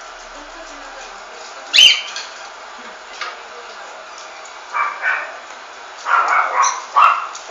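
A dog barking in short separate barks: one sharp bark about two seconds in, two shorter ones about five seconds in, then a quick run of barks near the end.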